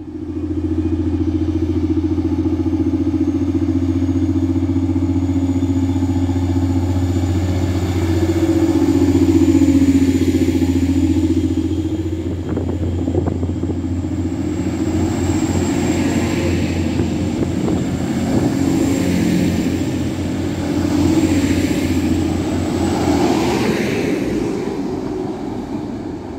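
A TransPennine Express Class 185 diesel multiple unit running close past along the platform, its underfloor diesel engines droning loudly and steadily. The pitch dips briefly about ten seconds in, and the sound grows rougher before fading near the end as the train moves away.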